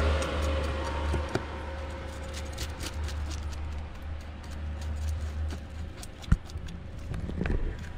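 A passing vehicle's low engine rumble fading away over the first five seconds or so, with scattered sharp clicks and knocks throughout. The loudest knock comes about six seconds in.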